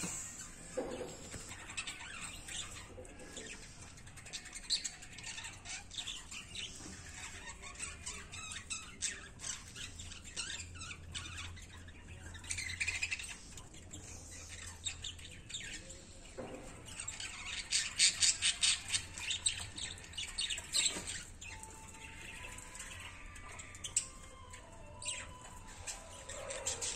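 Guinea pigs rummaging in and chewing a heap of fresh leafy greens: rustling leaves and quick crunching clicks, with a dense run of rapid clicks a little past the middle and scattered short high chirps.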